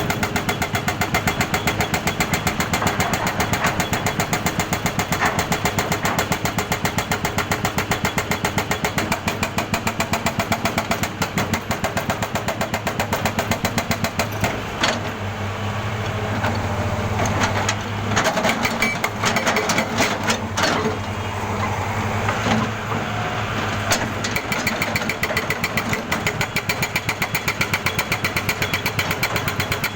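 Jackhammer pounding with a rapid, even beat. Through the middle the hammering turns uneven, with a steady low hum and a few separate knocks, then the steady rapid hammering resumes.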